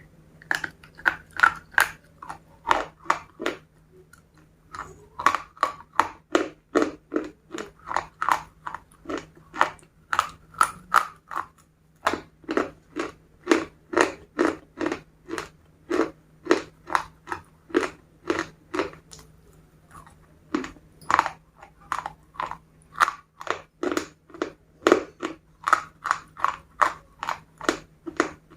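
Close-miked crunching and chewing of crispy KFC fried chicken, about two crunches a second with a few short pauses. A faint steady low hum sits underneath.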